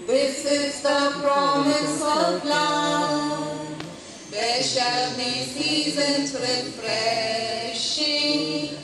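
Unaccompanied singing, sung in long held phrases with a short break about four seconds in.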